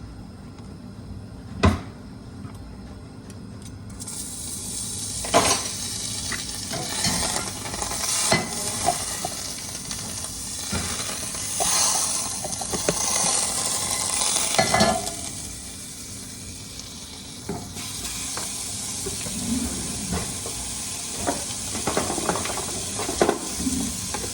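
A sharp knock of a pan, then grease sizzling in a hot frying pan from about four seconds in, with the scrape and clatter of a utensil against the pan. The sizzle drops away for a few seconds past the middle and comes back.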